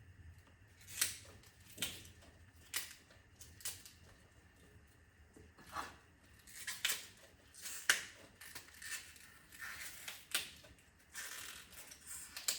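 Fresh bok choy being broken apart by hand: irregular crisp snaps of the stalks and leaves, about one a second, with a longer crackle near the end.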